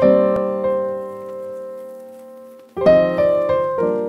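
Background piano music: a chord rings out and slowly fades for nearly three seconds, then a quick run of notes starts up again.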